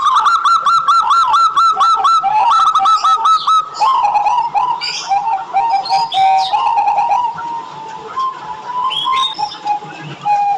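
Zebra dove (perkutut) song. It opens with a fast run of short, arched notes, about five a second, for the first few seconds, then breaks into lower, uneven notes that grow quieter toward the end.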